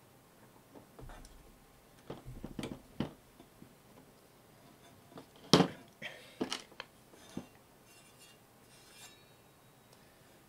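Scattered clicks and small metal clinks as the cover screws are backed out of the Elation DP-415 dimmer pack's metal case and the screws and screwdriver are set down on a table, then the cover is lifted off. The loudest knock comes about halfway through, followed by a few lighter taps.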